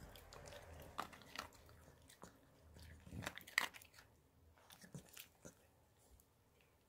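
Yorkshire terrier crunching and chewing dry dog food. A handful of sharp crunches comes in the first four seconds, then fainter chewing.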